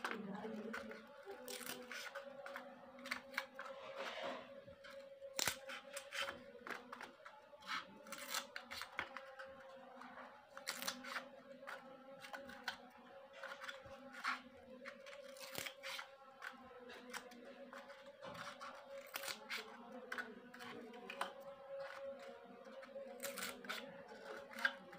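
Scissors snipping through the rim of a thin thermocol (polystyrene foam) bowl, a string of short, sharp, irregular snips and crunches as slits are cut one after another. A steady low hum runs underneath.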